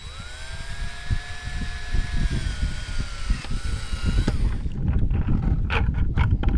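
Handheld power drill with an 11/32-inch bit spinning up and boring through the soft plastic wall of a 5-gallon bucket. Its whine sags slightly in pitch as the bit cuts, then stops after about four seconds, followed by a few knocks.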